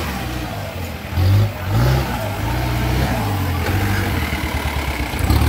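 Mahindra jeep's engine revving up and down under load as it climbs a steep dirt slope, its pitch rising and falling several times.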